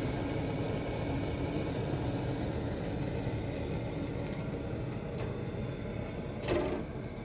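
Hotpoint gas oven running with its door open: a steady rushing hum, with a brief louder knock about six and a half seconds in.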